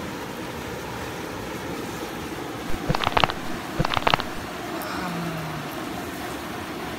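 Footsteps knocking on wooden stairs: two short clusters of sharp knocks about three and four seconds in, over a steady background hiss.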